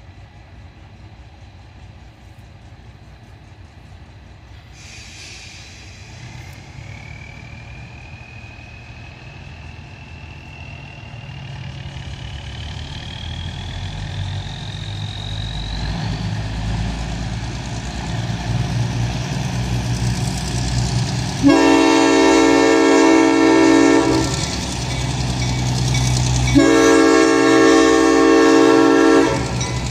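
Arcade & Attica Railroad diesel locomotives approaching, their engine rumble growing steadily louder, with a long rising whine in the first half. In the second half the locomotive horn sounds two long blasts as the train reaches the road crossing, the start of the grade-crossing signal.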